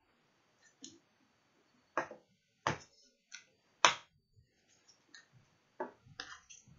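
Hard plastic containers being handled: a handful of sharp clicks and knocks as small sling vials and plastic enclosures are picked up, set down and opened, with near quiet between. The loudest knock comes about four seconds in.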